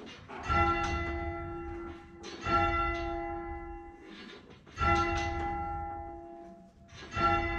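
Bell number 2 of a six-bell tower rung full circle on its rope, striking four times about every two and a half seconds, handstroke and backstroke in turn, each stroke ringing on and fading. The ringing tests whether the Abel simulator, set to a 260 ms sensor delay, strikes in the same place as the real bell.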